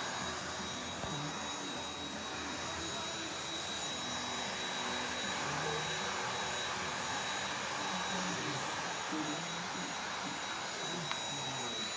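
Vacuum cleaner running steadily: a constant motor rush with a thin, steady high whine over it.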